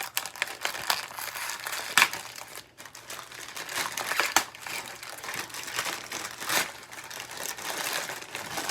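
A mailer package being opened by hand: irregular crinkling and rustling of packaging with sharp snaps and crackles, the loudest at about 2 and 6.5 seconds in.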